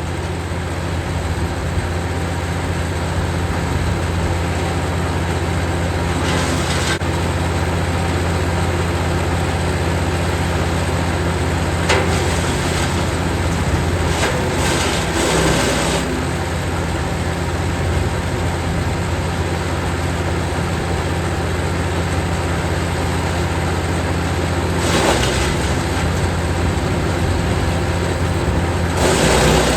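Jansen 1500e GTS wood chipper running steadily at full speed, with short bursts of louder crackling noise about five times as branches are fed in and chipped.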